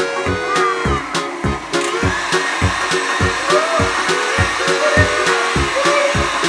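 Red KitchenAid tilt-head stand mixer running, its motor whirring steadily as the beater turns the cookie dough in the steel bowl; it starts up about two seconds in. Background music with a steady beat plays throughout.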